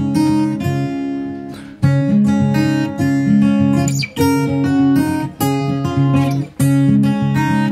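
Background music: strummed acoustic guitar playing a steady run of chords.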